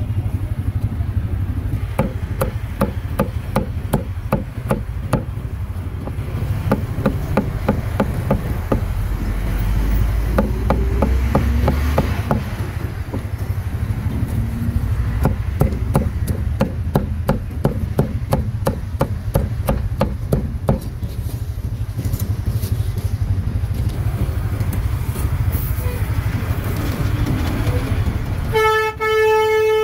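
Cleaver chopping grilled meat: a fast, fairly regular run of sharp knocks that stops a few seconds before the end, over a steady rumble of street traffic. A vehicle horn sounds for about a second near the end.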